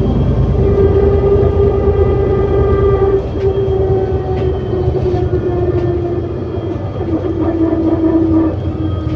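ADL Enviro400 City bus with a Voith automatic gearbox heard from inside while under way: a heavy low rumble with a strong steady whine from the driveline. The whine dips slightly in pitch about three seconds in and again about seven seconds in.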